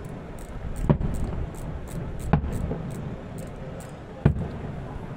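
Aerial firework shells bursting: three booms, about one, two and a half, and four seconds in, over a steady low rumble.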